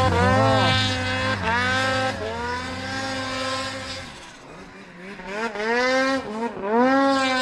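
Snowmobile engine revving hard, its pitch repeatedly dipping and climbing again as the throttle is worked to push up through deep powder. The sound fades about four seconds in, then an engine revs up loud again near the end.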